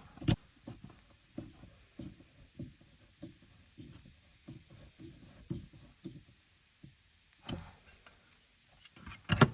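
Irregular light clicks, knocks and rubbing from hands handling small car parts and tools, with one sharper click right at the start and a short pause a little past the middle.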